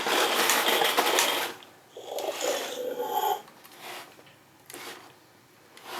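Motor and plastic gears of a battery-powered Imaginext dinosaur toy whirring and rattling as a part spins, stopping about a second and a half in; quieter mechanical clicks follow.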